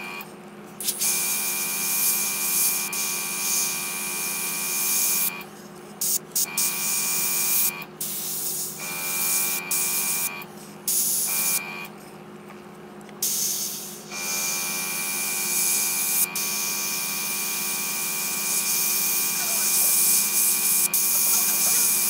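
Airbrush spraying black paint in about five passes: a hiss of air with a thin steady whistle while the trigger is held, cutting off between passes, the last pass the longest. A steady low hum runs underneath.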